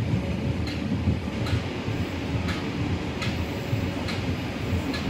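Locomotive-hauled economy passenger train running along the line: a steady low rumble with a few faint, irregularly spaced clicks from the wheels on the rails.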